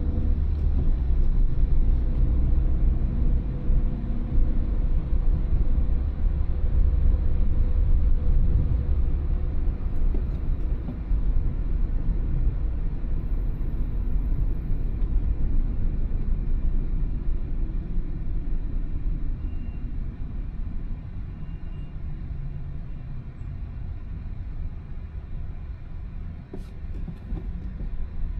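Car driving, with a steady low rumble of engine and road noise that eases off and gets quieter over the last third, as if slowing down.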